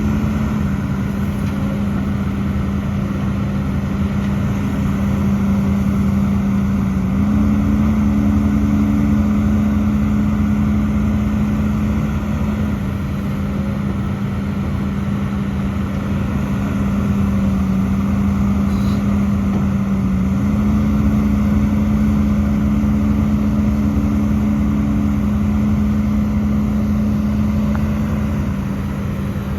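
Hidromek HMK230LC excavator's diesel engine running steadily under working load, its pitch stepping up and back down twice as the load changes.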